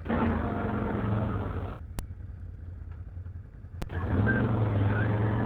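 Can-Am Outlander 850 ATV's V-twin engine pulling under throttle. It eases off to a low idle for about two seconds, with two sharp clicks, then picks up again.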